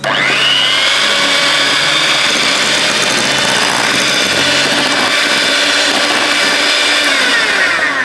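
Electric hand mixer beating whipping cream and cream cheese: the motor's whine rises as it starts, runs steadily at high speed, then winds down near the end.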